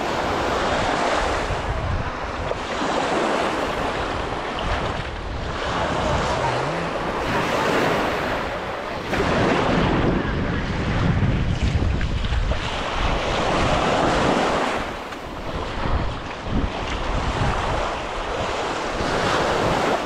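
Ocean surf washing onto a sandy beach, rising and falling in slow swells, with wind noise on the microphone.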